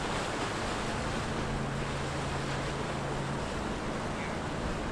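Steady rush of wind and choppy inlet water, with the low steady hum of a large motor yacht's engines underneath as it passes.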